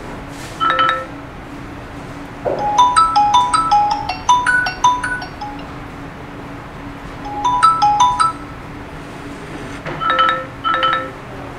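Phone loudspeaker of the repaired Redmi Note 10 Pro playing a ringtone-style melody of short chiming notes in several phrases with pauses between them: the phone's sound is working again.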